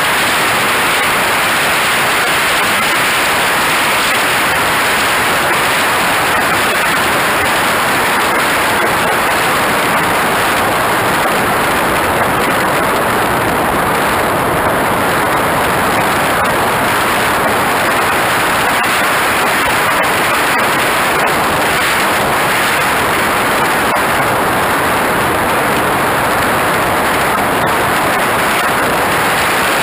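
Steady, loud rush of airflow over the microphone of a camera mounted on a radio-controlled jet in flight, an even hiss that does not change.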